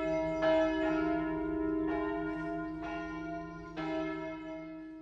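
Church bells ringing, struck four times about a second apart, each stroke ringing on into the next and dying away near the end.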